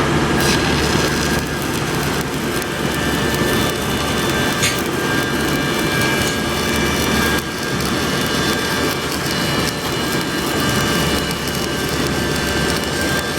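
Welding arc crackling and sputtering steadily, a dense continuous crackle.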